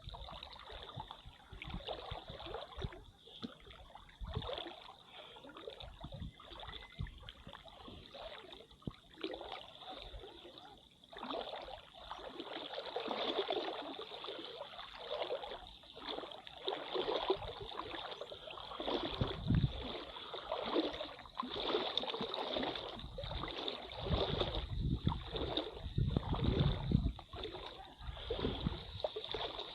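Water sloshing and splashing in irregular surges, growing louder and busier about halfway through.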